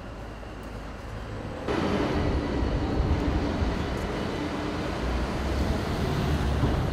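Town street traffic ambience. It grows louder about two seconds in, with a low engine rumble under the general traffic noise.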